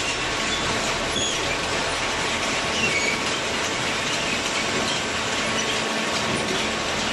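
Steady machinery running noise with a few short, high metallic squeaks.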